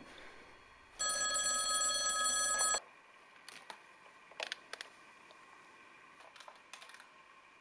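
A novelty piano-key telephone rings: one steady electronic ring lasting about two seconds, starting about a second in. It is followed by a few light clicks and knocks as the handset is lifted from the base.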